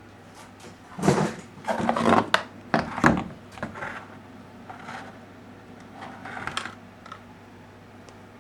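A run of knocks, clatters and scrapes, as of hard objects being handled and set down, over a steady low hum. The loudest knocks come in the first couple of seconds, and the sounds grow fainter after about three seconds.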